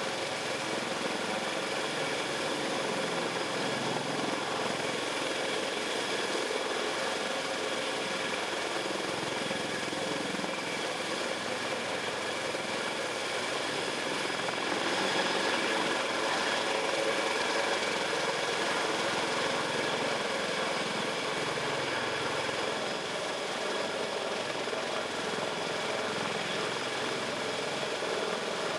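Sikorsky CH-53K King Stallion heavy-lift helicopter in low flight: its three turboshaft engines and main rotor running steadily, with a constant whine over the rotor noise, a little louder around the middle.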